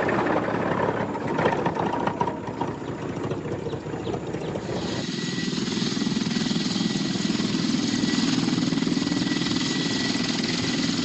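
A rapid mechanical clatter, then an abrupt change about five seconds in to helicopter noise heard from inside the cabin: a steady engine and rotor drone with a thin high whine.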